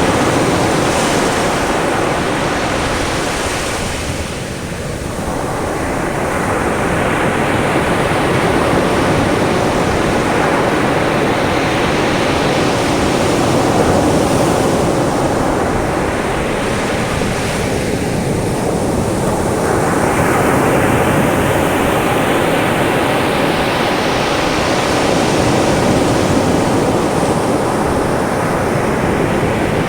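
Caribbean sea waves breaking and washing up on a sandy beach, a continuous surf noise that swells and eases with each wave, with some wind on the microphone.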